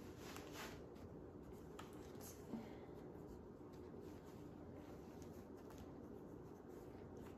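Faint rustling of dress fabric being pulled on and adjusted, with a few brief scuffs in the first couple of seconds and one soft knock about two and a half seconds in, over a low steady room hum.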